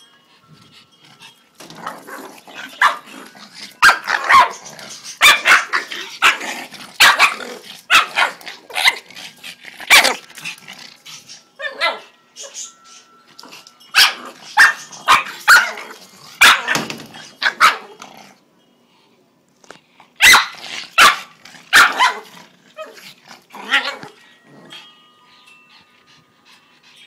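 Pug barking and growling in repeated short, sharp bursts, getting fierce in rough play. The bursts stop for a moment a little past halfway, start again, and die away near the end.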